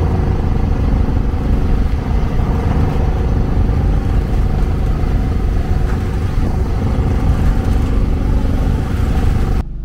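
An engine aboard a boat running steadily at a constant pitch, a loud low drone that cuts off suddenly near the end.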